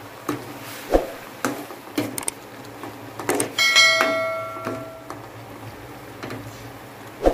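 A metal spoon stirring and knocking against an aluminium cooking pot, with separate clicks and scrapes. A little over halfway through, a bright metallic ding rings out and fades over about a second.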